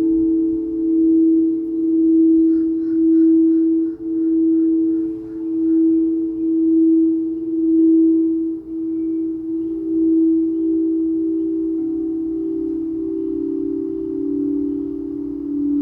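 Singing bowl ringing in sustained low tones, several at once, that swell and fade about once a second. A brief run of faint, high tinkling comes about two to five seconds in.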